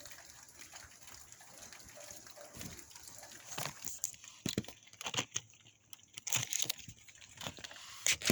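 Steady hiss of rain and wind, then, from about halfway through, a run of irregular sharp knocks and taps, the loudest of them near the end.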